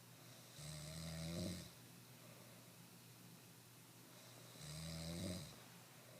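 A person snoring: two snores about four seconds apart, each lasting about a second.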